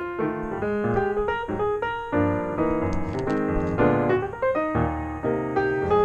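Background music: a piano playing quick runs of notes and chords.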